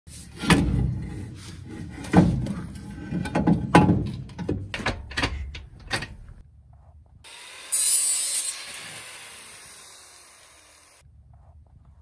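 A rapid, irregular string of knocks and clunks from hands working on car parts and tools. About eight seconds in there is a short hiss that fades away, then the sound cuts off.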